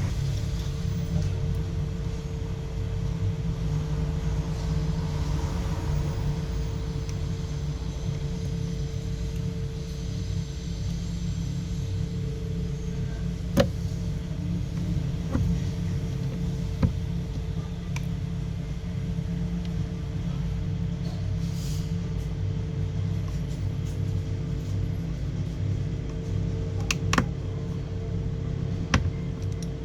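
Steady low rumble with a faint constant hum. A handful of small sharp clicks are scattered through it, from a precision screwdriver and tiny screws as a phone's mid-frame screws are put back and tightened.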